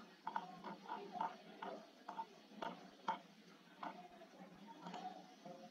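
Faint, irregular clicks of a laptop keyboard and mouse, about a dozen spread through, as a date of birth is entered into a web form.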